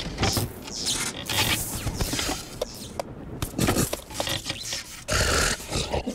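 Cartoon sound effects of a hollow wooden log scraping and knocking as it is shifted over a rock, in irregular strokes. A louder rasp comes about five seconds in.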